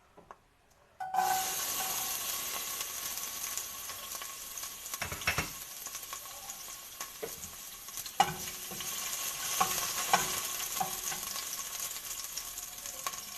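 Halved garlic cloves going into hot olive oil in a pot. The sizzling starts suddenly about a second in and carries on steadily, with a few sharp knocks of a utensil against the pot as they are stirred.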